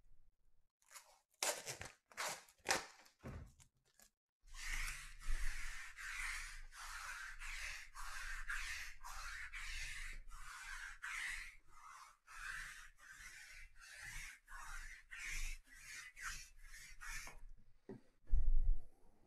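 A lint roller rolled back and forth across a table mat in quick repeated strokes, about two a second, after a few short sharp sounds at the start. A thump near the end.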